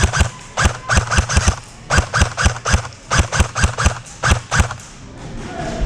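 Airsoft guns firing in quick volleys of sharp shots, about twenty in all, in bursts of two to six with short pauses between.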